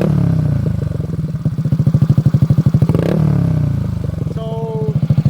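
Yamaha Mio Soul i 125 single-cylinder scooter engine, built with an 8.0 lift cam, running through an SC Project exhaust. It idles with a strong, even pulse and is blipped up and back down twice, once at the start and again about three seconds in.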